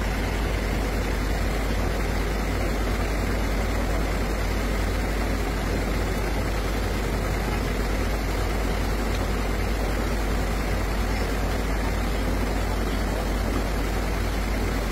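A heavy vehicle engine idling steadily: a constant low rumble with an even noise over it, unchanging throughout.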